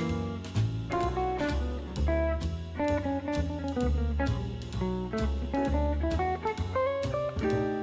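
Background music: a plucked guitar tune over a drum kit, with low bass notes and a steady beat.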